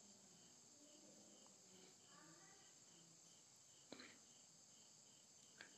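Near silence: faint insect chirping repeated evenly about two or three times a second over a steady high hiss, with two small clicks near the end.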